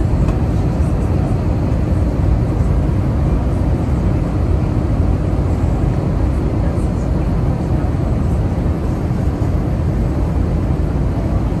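Steady, deep cabin noise of an Airbus A321 on approach, heard inside the cabin: an even rumble of the engines and the air rushing past the fuselage.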